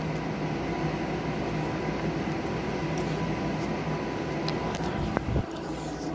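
A steady ventilation hum with a low tone fills the room. About five seconds in, a couple of sharp clicks and a short knock sound as the recording phone is picked up and handled.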